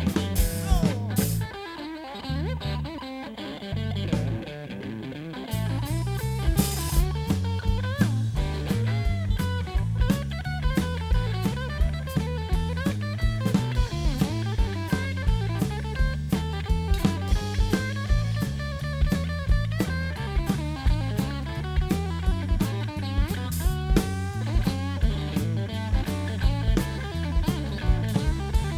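Live blues band playing an instrumental break without vocals, with electric guitar over bass and drum kit keeping a steady beat. The bass and drums drop out about two seconds in and come back in full after about five seconds.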